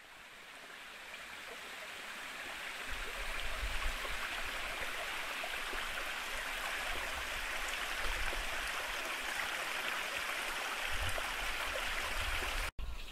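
Small stream flowing: a steady rush of running water that fades in over the first few seconds, with occasional low rumbles underneath, and cuts off abruptly near the end.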